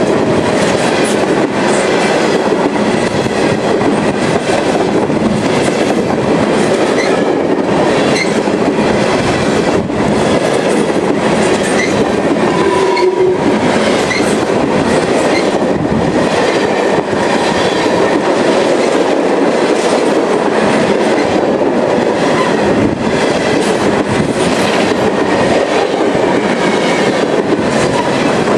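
A CSX freight train's cars rolling past at close range: a steady loud rumble of wheels on rail with repeated clicking over the rail joints and faint brief squeals.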